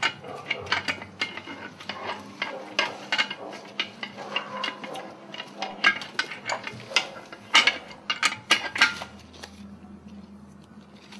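A run of irregular sharp clicks and knocks, many in quick succession, that thins out after about nine seconds, over a faint steady hum.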